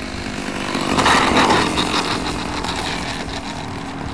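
Two-stroke OS Max .46 AX glow engine of an RC sport plane running at low throttle as the plane lands and rolls out on the runway. It swells to its loudest about a second in, then settles to a steady run.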